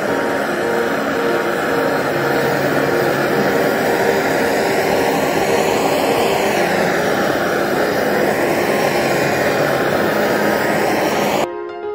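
Gas torch flame running with a steady rushing roar, its tone slowly sweeping up and down, as it heats a metal strip to a red glow. Music comes in abruptly near the end.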